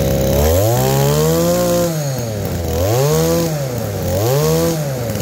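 Used brush cutter engine revved up from idle three times, its pitch rising and falling with each throttle blip, the first rev held longest, then back to a steady idle.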